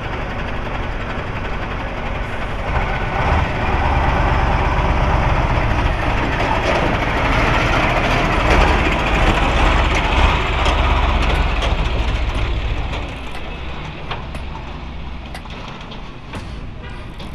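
A heavy motor vehicle's engine running with a steady low rumble. It grows louder about three seconds in, holds for about ten seconds, then eases off.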